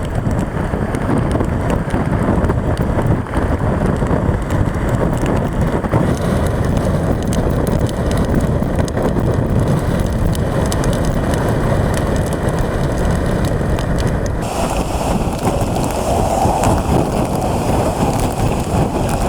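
Hurricane wind blowing hard against the microphone, with rain. The sound changes abruptly about six seconds in and again near fifteen seconds.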